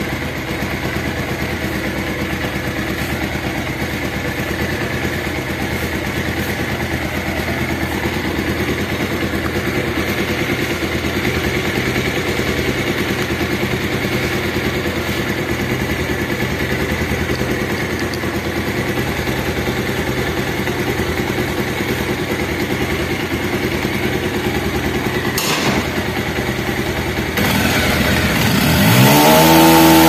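Bajaj Pulsar DTS-i single-cylinder engine idling steadily after its scissor gear and timing chain were reworked, without the harsh noise it had before, which the mechanic takes as the problem solved. There is a single click shortly before the end, then the engine revs up, its pitch rising, and holds at a higher speed.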